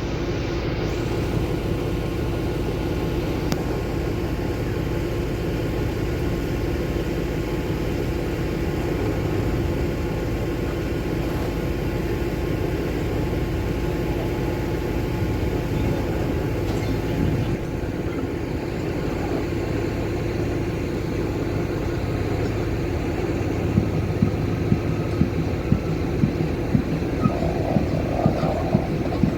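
Sri Lanka Railways S8 diesel multiple unit's engine idling with a steady drone. In the last few seconds, sharp clicks come about twice a second.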